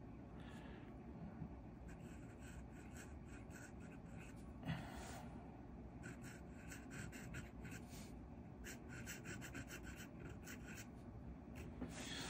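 Faint scratching of an Esterbrook Estie fountain pen's extra-fine steel nib on paper, writing cursive in quick short strokes grouped into words with brief pauses between them.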